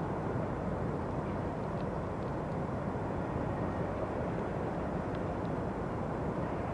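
Distant, steady low rumble of a freight train rolling through a rail yard, hauled by two SBB Re 4/4 II electric locomotives.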